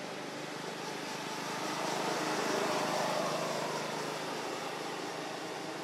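Motor vehicle engine noise passing by: a steady hum that swells about two seconds in, slides lower in pitch at its loudest, and fades again.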